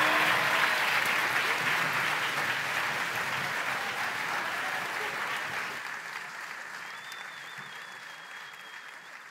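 Theatre audience applauding at the end of a musical, the applause fading steadily away.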